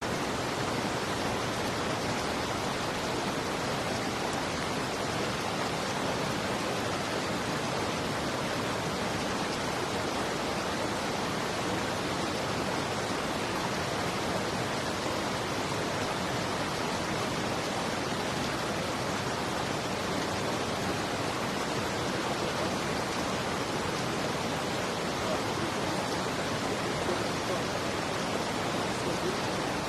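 Steady, even rushing of water, like a waterfall or fast stream, without a break.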